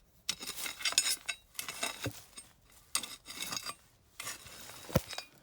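A hand tool scraping through gritty soil and rubble, a run of short irregular scrapes with small clinks against buried debris, and one sharp knock near the end.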